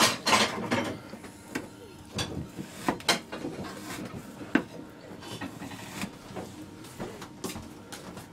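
Kitchen knife cutting through minced meat and knocking on a wooden cutting board, sharp knocks at irregular intervals.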